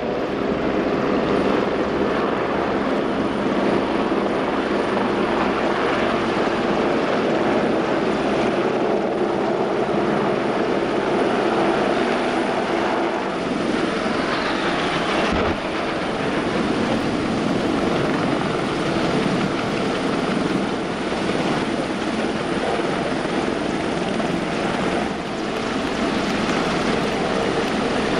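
A formation of military helicopters, two AgustaWestland Merlin Mk3s and two Wildcat AH1s, flying past: a steady drone of rotors and turbine engines over a low, rhythmic pulsing of the blades.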